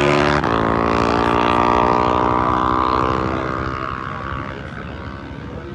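Racing motorcycle engine running hard at high, steady revs, with a brief break about half a second in, then fading away over the last couple of seconds.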